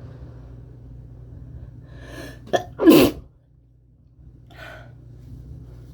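A person sneezes once into their hands about halfway through: a quick catching inhale, then a short, loud sneeze. A softer breath follows about a second and a half later.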